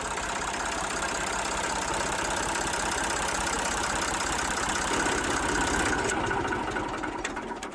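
Diesel engines of a large hydraulic mining excavator running steadily, with a fine rapid pulsing. The sound cuts in abruptly, and near the end the hiss thins out.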